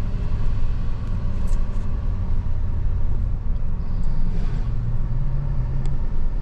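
Steady low rumble of road and engine noise inside a moving truck's cabin, with a low drone coming up in the second half.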